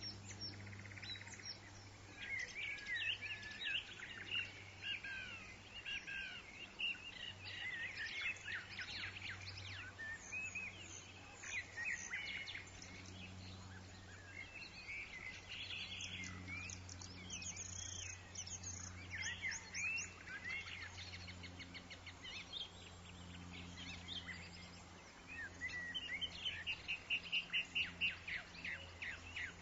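A woodland chorus of songbirds chirping and calling over one another, with a steady low rumble beneath. Near the end one bird gives a fast, evenly pulsed trill.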